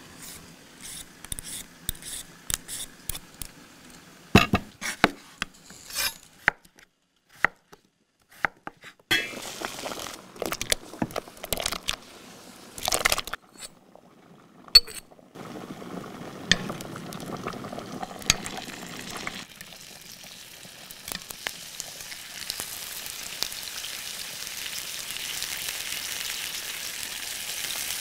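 Kitchen cooking sounds: a string of sharp knocks and clinks of utensils and cookware, then, about halfway through, a steady sizzle of food frying in a pan that grows louder toward the end.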